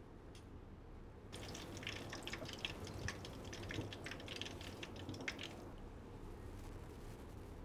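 Faint crackling and sizzling of hot oil in a frying pan as pastries fry: a dense run of small pops that starts about a second and a half in and stops about two seconds before the end.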